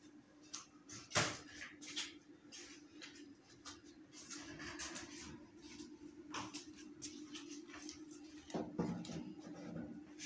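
Faint scattered clicks and light knocks of dishes being handled, over a steady low hum.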